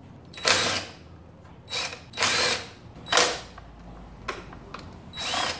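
Porter-Cable 20V cordless drill/driver run in about five short bursts, backing out the bolts at the battery module's connections.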